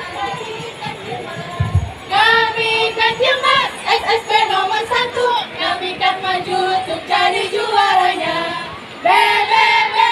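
A group of women singing and chanting a yel-yel cheer song together, the lead voice through a handheld microphone. The singing grows louder about two seconds in, eases briefly, and comes in loud again near the end.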